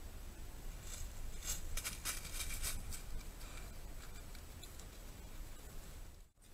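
Wolf's footsteps crackling and rustling on dry leaves and grass as it walks off: a cluster of short, crisp rustles between about one and three seconds in, then a few fainter ones, over a low steady background hum.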